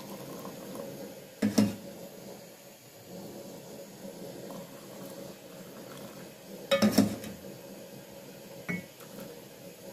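Kitchenware clinking and knocking as tea is dished out: a double knock about one and a half seconds in, a quick cluster of clinks around seven seconds, and a lighter clink near nine seconds, with faint soft background noise between them.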